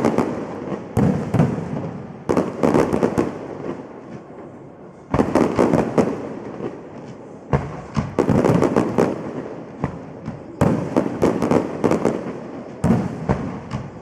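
Aerial fireworks going off: a series of sharp bangs every one to three seconds, each followed by a quick run of smaller pops and crackles that fades away.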